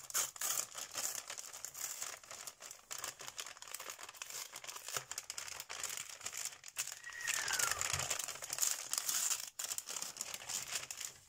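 Thin tissue gift-wrap paper crinkling and rustling as hands unfold and pull it open, a steady run of irregular crackles.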